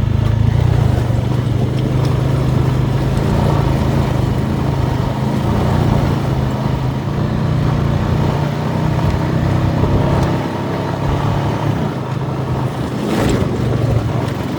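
Off-road vehicle engine running steadily while under way, its note easing briefly about ten seconds in. A short sharper rattle or knock comes near the end.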